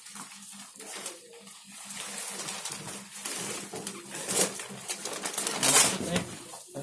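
Clear plastic wrapping around a new mattress rustling and crinkling as the mattress is lifted and shifted, loudest about six seconds in.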